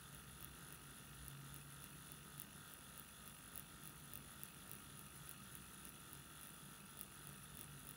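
Permanent-makeup machine running quietly with a single-needle cartridge: a faint steady hum, with soft ticks about twice a second as the needle is dotted into a practice pad to lay pixels.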